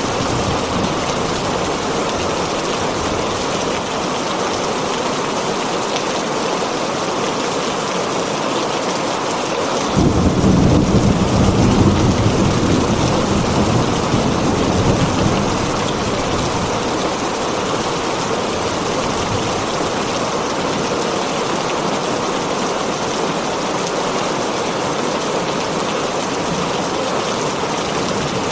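Heavy rain drumming steadily on a tin roof. About ten seconds in, a roll of thunder breaks in suddenly as a deep rumble and fades out over five or six seconds.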